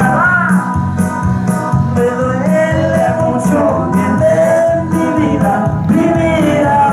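Loud dance music played through a sound system, with a voice singing over sustained keyboard-like notes and a steady beat of about two strokes a second.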